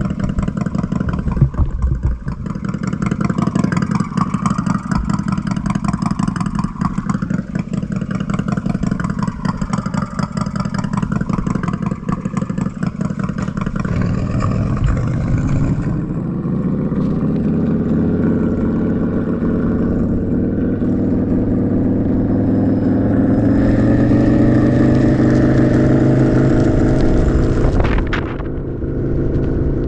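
Synthetic Harley-Davidson Fat Boy V-twin engine sound from the EUC World app's acoustic vehicle alerting system, played through a King Song 16X electric unicycle's built-in speakers. It starts as a low, pulsing idle-like rumble, rises in pitch about halfway through as if revving up, holds at the higher pitch, and eases off briefly near the end.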